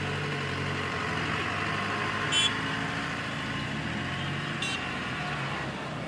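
Car cabin noise while driving in city traffic: a steady engine hum and road noise. Two short high-pitched chirps cut through, a little before halfway and again near the end.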